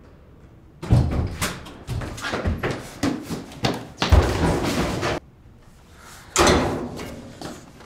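Loud bangs and thuds in quick succession, like doors or metal lockers slamming, for about four seconds, then one more heavy slam that dies away slowly.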